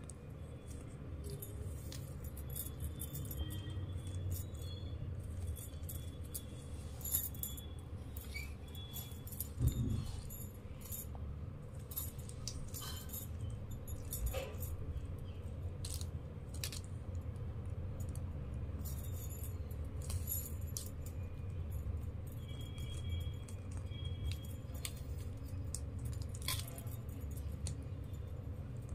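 Plastic craft wire strands clicking and rustling as they are threaded and pulled through a woven bag by hand, with scattered light clicks and one duller thump about ten seconds in, over a steady low hum.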